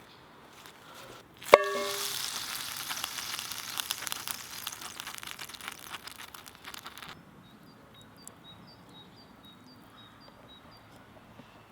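A sharp metallic clink, then food sizzling loudly in a hot pan over a wood fire, fading and cutting off suddenly about seven seconds in. Faint high chirps follow.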